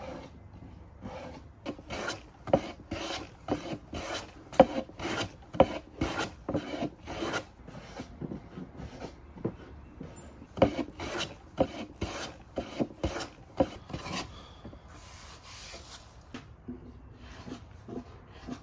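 Hand rasp or file strokes on cypress wood, shaping a bevel: a run of quick, even strokes about two a second that stops about three-quarters of the way through, followed by one longer, softer stroke.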